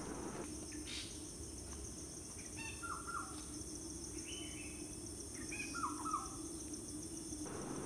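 Quiet background with two short groups of bird chirps, about three and six seconds in, over a faint steady high-pitched hiss.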